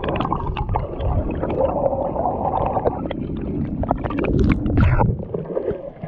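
Muffled low rumbling and gurgling of lake water heard through a camera's microphone held underwater beside a moving pedal boat, with scattered clicks and knocks. It swells to its loudest about four and a half seconds in, then drops off as the camera comes up out of the water near the end.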